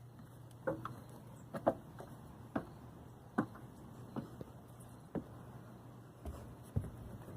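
Scattered light taps and knocks, about one a second, over a faint steady hum.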